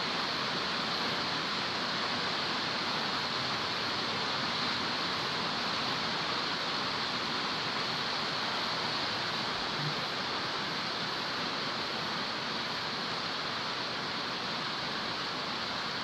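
A steady, even hiss of background noise with no distinct clicks or knocks.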